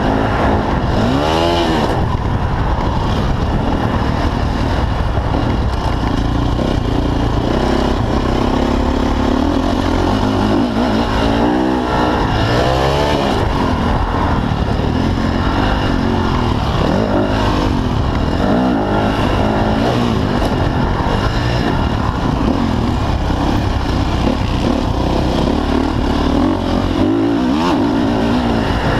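Motocross dirt bike engine under race load, revving up and down hard with its pitch rising and falling again and again.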